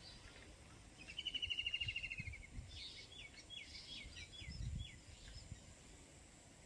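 Faint birdsong: a rapid high trill lasting about a second and a half, then a quick run of short, down-curving whistled notes. A brief low rumble comes a little past the middle.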